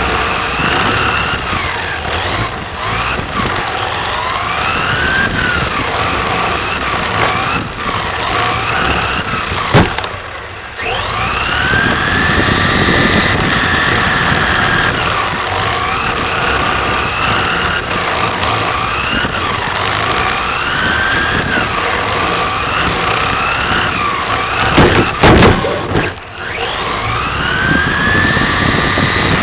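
Onboard sound of an electric VTA-class RC touring car (Team Associated TC4 chassis) racing: the brushless motor and drivetrain whine, rising and falling in pitch as it speeds up and slows for the corners. Two sharp knocks cut through, one about ten seconds in and another about 25 seconds in.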